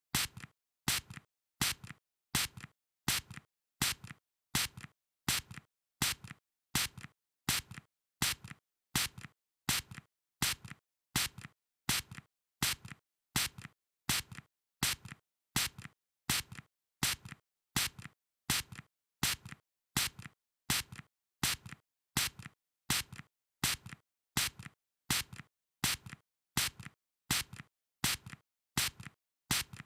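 Short hissing spray bursts repeated at an even pace, about two a second, with a stronger burst and a weaker one in turn and silence between.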